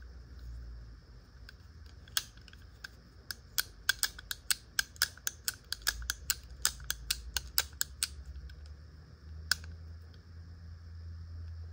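Quick series of sharp metallic clicks, roughly three a second for about six seconds, then a single click a little later, from the action of a Remington Model 95 double-barrel derringer being worked by hand.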